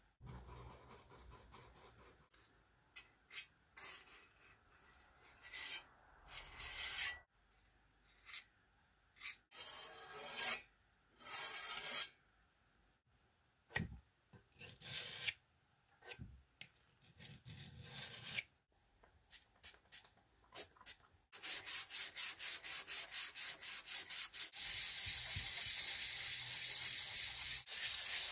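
Filler being spread and scraped onto a steel sheet-metal cover with a plastic spreader, in short irregular strokes. About two-thirds of the way in, hand sanding of the metal starts: fast back-and-forth strokes with a sanding pad that soon run together into a continuous loud rasp.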